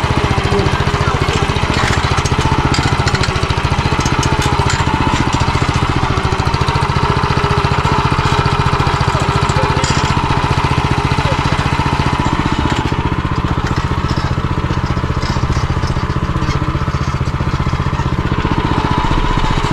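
MTZ-09N walk-behind tractor's air-cooled single-cylinder petrol engine running steadily as the tractor drives along a grassy track, heard close up from the operator's position.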